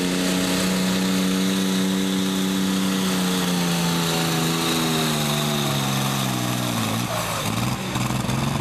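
A 6,000 lb super stock pulling tractor's engine running hard under load down the track. Its pitch holds, then falls steadily over several seconds as the sled bogs it down. Near the end it dips briefly and settles into a lower steady drone.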